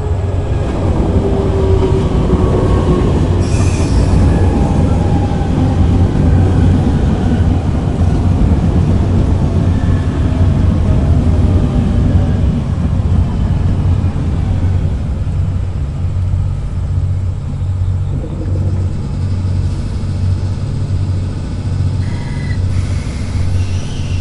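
Electric train on the far track, its motor whine falling steadily in pitch as it slows, with wheel and rail noise and wheel squeal. A steady low hum runs underneath.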